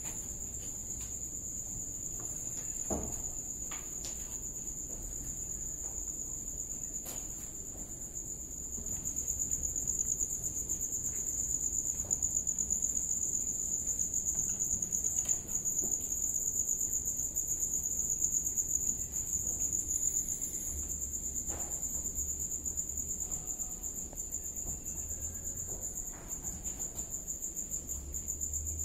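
Crickets trilling in a steady, continuous high-pitched drone, with a few faint knocks early on.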